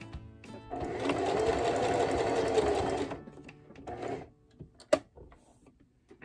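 Electric sewing machine stitching through fabric. It runs at a steady speed for about two and a half seconds from about a second in, then more quietly for about another second before stopping. A single sharp click follows near the end.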